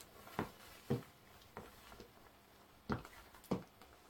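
High-heeled platform pumps clicking on a hard floor as the wearer takes steps: about five sharp heel strikes at an uneven walking pace.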